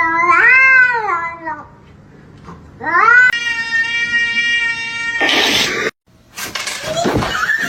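Cat giving two long, drawn-out meows: the first rises and falls, the second rises and is then held steady. A short burst of noise follows, and another cat call starts near the end.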